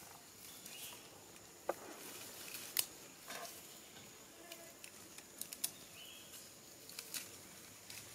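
Scattered short, sharp clicks and light crackles of twigs and dry leaves as pig-tailed macaques sit and handle sticks and food in leaf litter.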